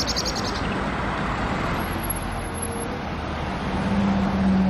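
London New Routemaster double-decker bus driving past in street traffic: engine and road noise with a steady hum that grows louder near the end as the bus comes close.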